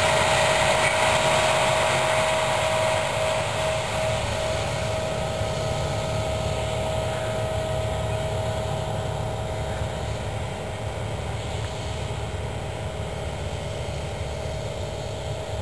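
John Deere four-wheel-drive tractor pulling a 48-row corn planter, running steadily with a low rumble and hiss. A steady whine fades out about three seconds in, and the whole sound slowly fades.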